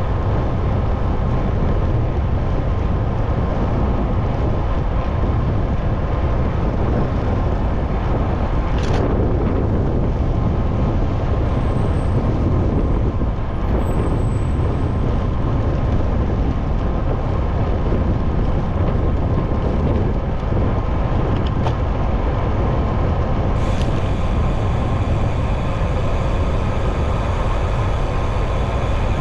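Steady city road traffic with a heavy low rumble, recorded from a moving bicycle. A brief sharp sound comes about nine seconds in, and a hiss joins about three-quarters of the way through.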